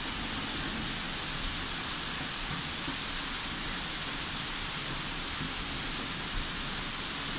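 Heavy thunderstorm rain pouring down, a steady, even hiss.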